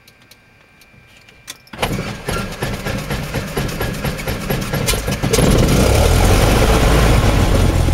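Cessna 172's engine being cranked by the starter, a fast even chugging for about three and a half seconds, then catching a little past the five-second mark and settling into a steady run. It started right up on the first try.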